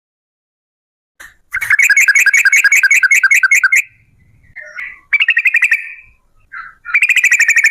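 Yellow-vented bulbul (trucuk) singing its long rolling song: rapid runs of repeated bubbly notes, about eight a second, broken by short single calls. The first run starts about a second and a half in.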